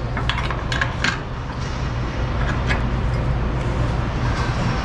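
Steady low rumble of an idling vehicle engine, with a few light clicks and taps as a cargo strap is handled against a steel crate, mostly in the first second.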